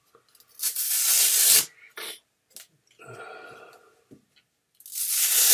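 Velcro (hook-and-loop) strips being ripped off a compression garment: two long rasping tears, one about a second in and one near the end, with a few short scratchy pulls between.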